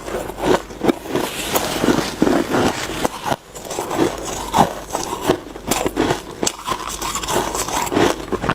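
Close-up crunching of snowy shaved ice as it is scooped and chewed: a quick, irregular run of crisp, gritty crunches.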